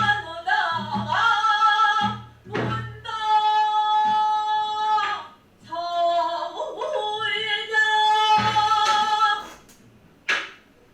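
Pansori singing: one voice holds long notes that waver and bend in pitch, broken by short pauses, with low strokes on a buk barrel drum in the first few seconds and again about two-thirds of the way in.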